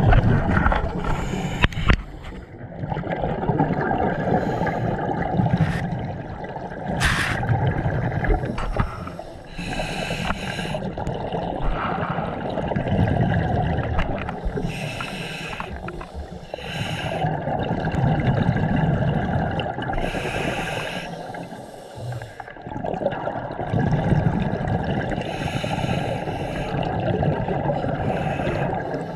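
Scuba regulator breathing underwater: slow breaths drawn through the demand valve, each followed by exhaled air bubbling out, about four breath cycles in a steady rhythm.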